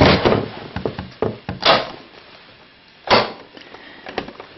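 A few sudden knocks and scrapes of objects being handled. The loudest come at the start and about one and a half and three seconds in, with smaller clicks between.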